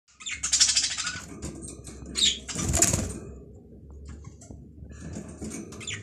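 Budgerigar hen brooding in a wooden nest box: bursts of rustling and scratching as she shifts on the eggs, with a couple of short rising chirps, one about two seconds in and one near the end.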